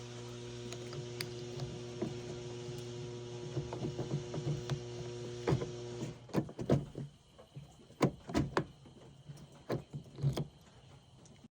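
A machine hums steadily, then stops about six seconds in; sharp clicks and knocks sound throughout and go on after it stops.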